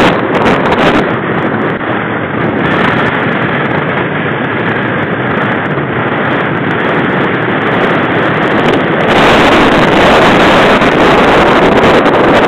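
Mountain bike riding along a gravel road: a loud rushing of wind on the microphone mixed with tyre crunch and clicks and rattles from the bike. The noise grows louder about nine seconds in.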